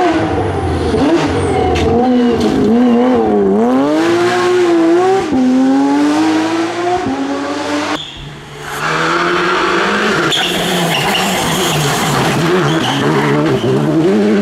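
Rally cars at full effort: a Porsche 911 rally car's flat-six engine revving hard and dropping back through gear changes as it climbs past. After a sudden cut about eight seconds in, a second rally car's engine is heard under power, with a rush of tyre noise on the loose surface.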